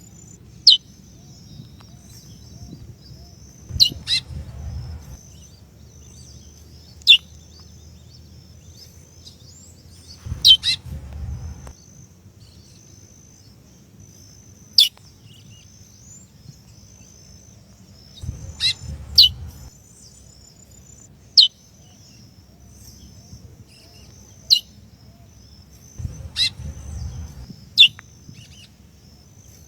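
Female chestnut-bellied seed finch (curió) giving short, sharp downslurred call notes every few seconds, sometimes two in quick succession, calls meant to excite the male. A faint continuous high twittering runs underneath, and brief low rumbling noises come with several of the calls.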